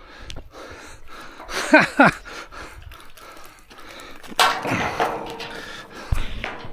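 Wire-ringed lift net with a big carp in it being hauled up against a metal bridge guardrail: a scraping, knocking stretch starting about two-thirds of the way in, with a dull thud near the end. A short vocal exclamation comes about two seconds in.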